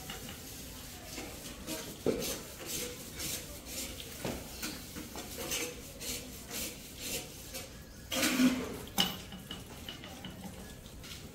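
Adjustable spanner clinking against the lug nuts of a steel wheel as they are loosened: a run of light, separate metallic clinks, with a louder clatter about eight seconds in.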